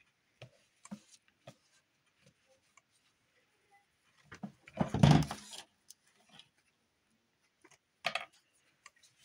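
Craft materials being handled on a work table: scattered light clicks and taps, a louder knock with rustling about five seconds in, and a shorter rustle about eight seconds in.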